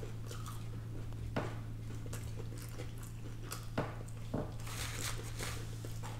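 Close-miked eating sounds: chewing and biting on fried chicken, with a few soft clicks and light rustles. A steady low electrical hum runs underneath.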